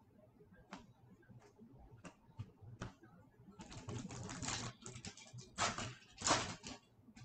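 Trading cards being handled and shuffled in the hands. A few light clicks come first, then several bursts of rustling and sliding from about three and a half seconds in, the loudest near the end.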